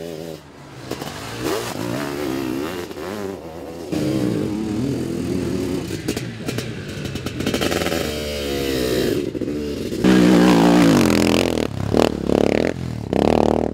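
Motocross sidecar racing motorcycles' engines revving up and down as the outfits race, their pitch rising and falling. The sound changes abruptly about four and ten seconds in, and it is loudest after the second change.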